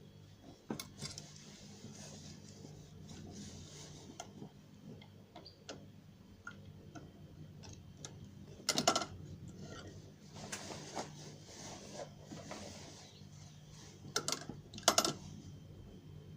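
Irregular small clicks and taps of hands working with the pinned fabric, zipper and sewing machine while setting up to sew, with two louder rattling clusters about 9 and 15 seconds in. A steady low hum runs beneath; the machine is not yet stitching.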